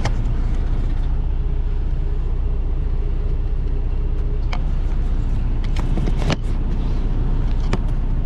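Steady low rumble of an idling truck engine, heard from inside the cab, with a few light clicks and knocks about four and a half, six and eight seconds in.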